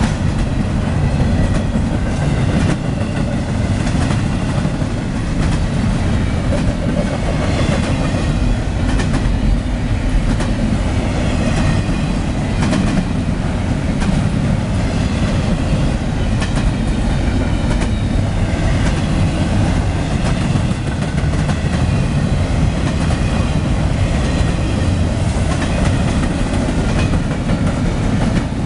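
CSX intermodal freight train's cars rolling past close by: a steady loud rumble with wheels clacking over the rail joints.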